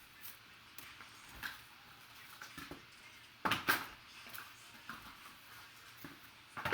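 Hands handling trading-card packaging: scattered soft rustles and taps, with two sharper crinkling snaps about three and a half seconds in.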